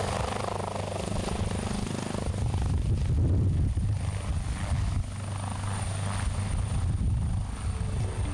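Helicopter running, a steady low rotor and engine drone.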